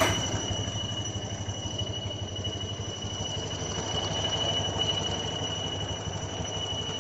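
Honda Vario 125 scooter's liquid-cooled single-cylinder engine idling with a steady high-pitched whistle over it. The mechanic traces the whistle to the water pump impeller rubbing against the pump housing because the pump bearing is worn and loose.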